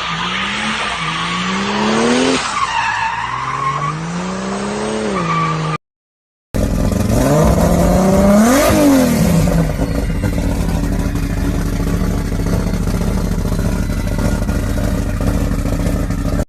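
Turbocharged Ford Barra 4.0-litre straight-six engine, revved in repeated short rising pulls. After a brief break, one sharp rev rises and falls, then the engine settles into a steady idle.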